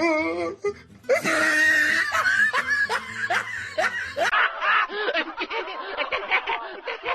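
Stock laughter sound effects played back to back: a person laughing in repeated falling bursts from about a second in, then an abrupt cut around four seconds in to a different, thinner-sounding recording of quick, rhythmic laughter.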